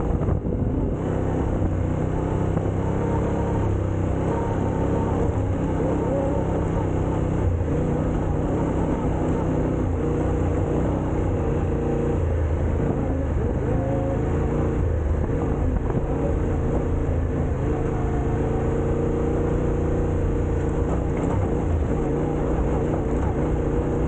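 Off-road vehicle engine running steadily under way, its pitch drifting a little with the throttle.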